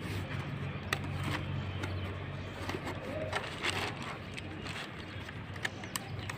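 Steady low hum under a background haze, with a few sharp clicks about a second in and again near the end.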